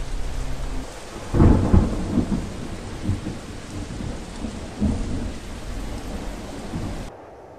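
Thunderstorm: steady rain, with a loud peal of thunder about a second and a half in and further rumbles of thunder after it. The rain cuts off abruptly near the end.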